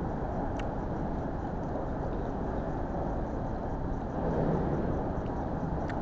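Steady background hum and hiss of an indoor mall food court, growing a little louder about four seconds in, with a faint click about half a second in.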